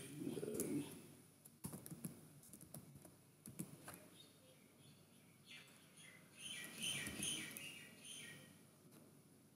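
Faint computer keyboard typing and mouse clicks as entries go into a spreadsheet, with high chirping sounds at the start and again about seven seconds in.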